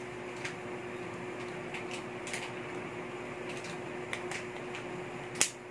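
Small plastic clicks and snaps as the back cover of an Oppo A5S phone is pressed onto its frame, the sharpest click near the end. A steady hum runs underneath.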